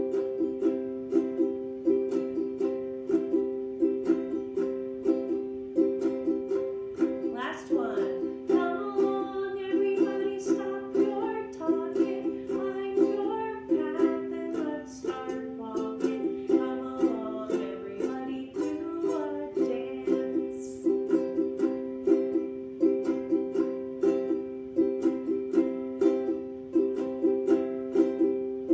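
Ukulele strummed in a steady, even rhythm. From about eight seconds in, a woman's voice sings along over the strumming for roughly ten seconds, then drops out while the strumming carries on.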